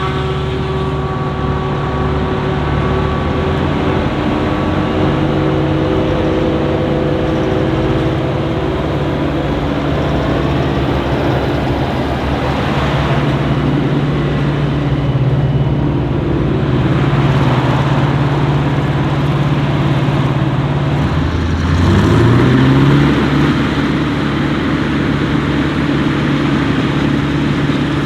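Heavy diesel engines of forage-harvesting machinery running steadily under load, with one engine revving up sharply about three-quarters of the way through.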